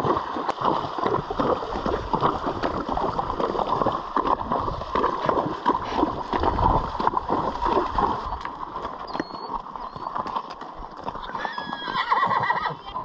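Two horses wading across a shallow river, their legs splashing and sloshing through the water step after step. A horse gives a short whinny near the end as they come out onto dry ground.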